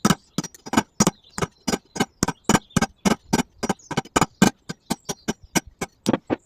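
Hammer blows on a steel punch, knocking a wheel bearing race out of a Land Rover Defender hub: a quick, even run of sharp metallic taps, about four a second.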